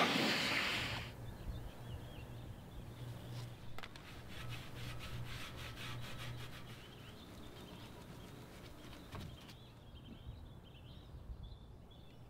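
An air blower drying a car blows loudly and cuts off about a second in. After that a microfiber towel rubs polish onto a stainless steel exhaust tip in short, quiet strokes. Faint high chirps come in near the end.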